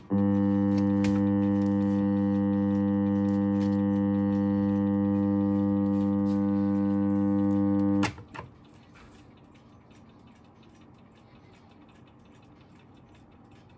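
Copal RD-700 clock radio's alarm sounding through its speaker, which it vibrates in place of a buzzer: a steady low buzzing tone that starts with a click and is cut off with a click about eight seconds in. A faint hiss with light ticks follows.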